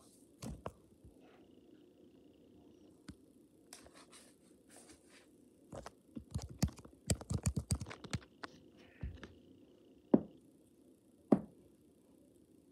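Scattered soft knocks and scratching, with a quick run of taps in the middle and then two sharp knocks about a second apart near the end.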